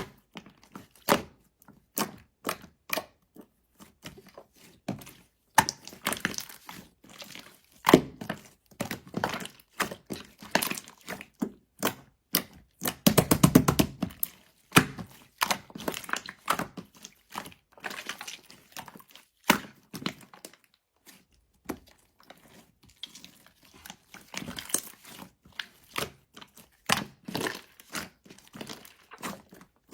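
Slime being squeezed and pressed by hand, giving an uneven run of sticky clicks and small pops, with denser crackling stretches about 6, 13 and 24 seconds in.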